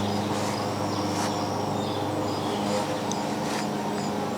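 Outdoor ambience: a steady low machine hum with faint repeated insect chirps high above it.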